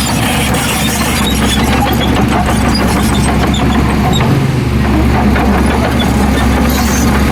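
Heavy diesel engine of earthmoving machinery running steadily with a deep hum; the low rumble grows a little stronger about two-thirds of the way in.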